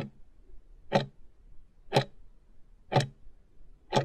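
Clock-tick sound effect marking a countdown timer: five sharp ticks, one each second.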